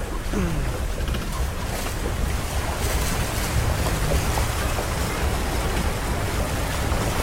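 Safari jeep driving over a rocky riverbed: a steady rumble of engine and tyres on loose stones, mixed with wind buffeting the microphone.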